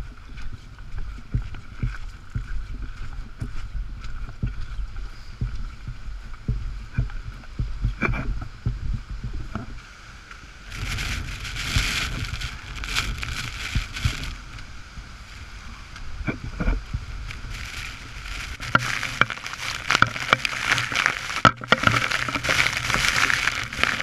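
Waterfall rushing, with the thumps and jostling of a diver's gear as he walks toward it with the camera. About halfway through the rush of the falling water and spray grows loud and close, becoming a heavy crackling spray near the end.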